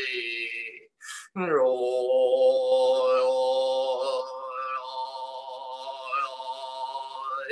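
A man's voice chanting a Tibetan Buddhist prayer in long, drawn-out sung tones. It pauses briefly for breath about a second in, then holds each note steadily.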